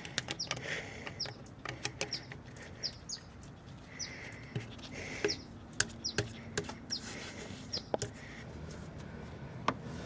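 A small bird chirping in short, high, falling notes, one every second or so, over scattered light clicks and taps of parts being handled.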